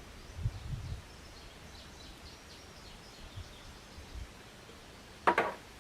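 Faint outdoor background with light, distant bird chirps, a few soft low thumps in the first second, and one short sharp knock about five seconds in.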